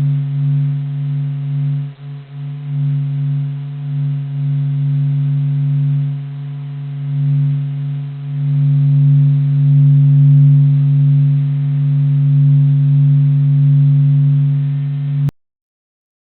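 A steady low drone of a few held tones with fainter overtones, slowly swelling and easing in loudness, then cutting off suddenly near the end: a planetary 'space sound', spacecraft data turned into audio.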